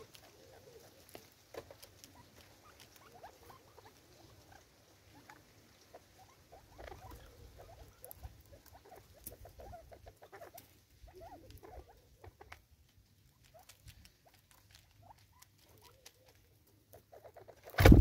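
Natal spurfowl feeding at a seed container: soft pecking and scratching clicks with short, quiet calls, then one sudden loud thump near the end.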